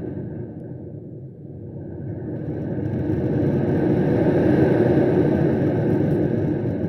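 Low-pitched rumbling noise that dips about a second in, then swells to its loudest midway and eases off toward the end.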